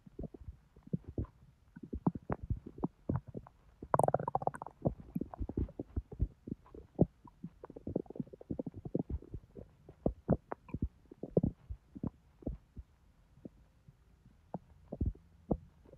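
Bowel sounds from a bloated, overfull belly digesting a junk-food meal: irregular small pops and clicks of gas and fluid moving through the intestines, with a longer gurgle about four seconds in and another around eight seconds.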